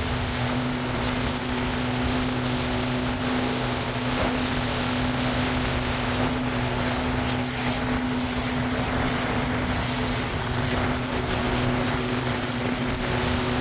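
Motorboat engine running steadily with the boat under way, together with wind rushing over the microphone and water noise from the chop.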